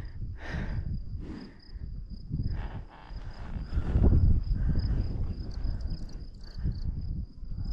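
Insects, crickets by the sound, chirring as one steady high tone, over uneven low rumbling noise that rises and falls in gusts.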